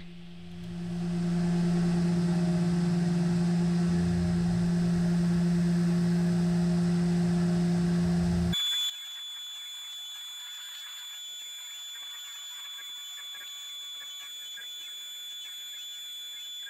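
Tormach PCNC 440 CNC mill running with a steady low hum while a ball end mill engraves a line into a brass coin. About eight and a half seconds in, the sound cuts abruptly to a quieter, steady high-pitched whine.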